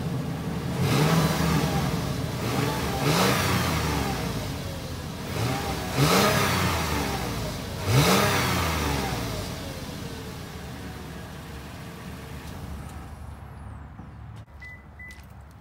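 A 2013 Toyota 4Runner SR5's 4.0-litre V6 is heard through its exhaust, blipped four times with a rise in pitch each time, the last two the loudest. It then settles back to idle and fades, with a few sharp clicks near the end.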